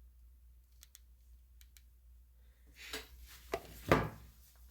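A few faint clicks from an EDC flashlight's switch buttons, then handling and rubbing noise with two sharp knocks near the end, the second one the loudest.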